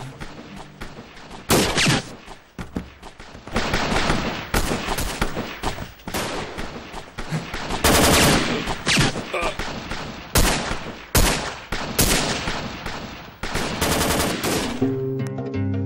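Rapid bursts of automatic fire from Kalashnikov-type rifles, dense crackling shots with several much louder close ones standing out. Music comes back in near the end as the shooting stops.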